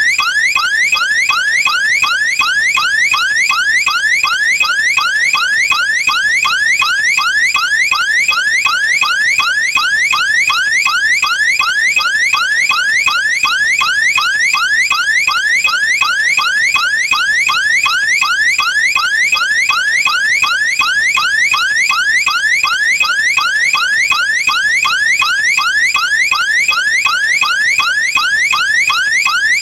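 Electronic home security alarm siren sounding continuously: a loud rising whoop repeated over and over in quick succession, without a pause.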